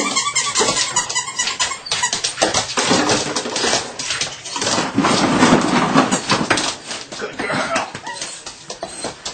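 Plastic water bottles crinkling and clattering on a wooden floor as a Belgian Malinois pup scrambles among them: dense rapid crackles and knocks, loudest about halfway through.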